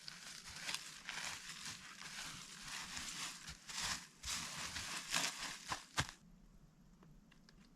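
Rustling and crunching with a few sharp cracks, which stops about six seconds in.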